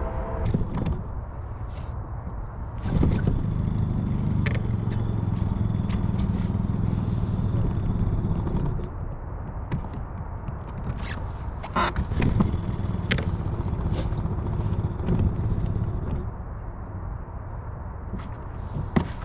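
Boat's outboard motor idling while it warms up before being shifted into gear, running louder for two stretches of several seconds. Scattered scrapes and knocks of rope and gear against the aluminium hull.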